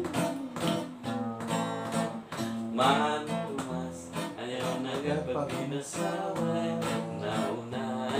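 Acoustic guitar strummed in a steady chord rhythm.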